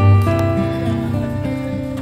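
Background music: a guitar tune playing in held notes that change about every half second.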